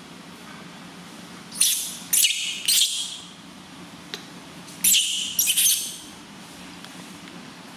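Newborn baby macaque crying in short, high-pitched screeches: three close together about two seconds in and two more about five seconds in, over a low steady hum.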